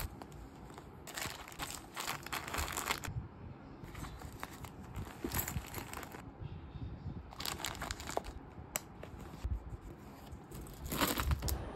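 Rustling and crinkling as hands rummage through a leather handbag and handle what is inside, including keys and a card holder. It comes in several bursts of a second or two, with a few light clicks between them.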